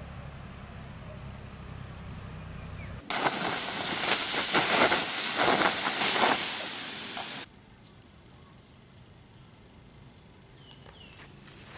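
Hot embers and ash of a stone-ringed wood fire being doused with water, hissing loudly as the water turns to steam. The hiss starts abruptly about three seconds in and cuts off abruptly a few seconds later.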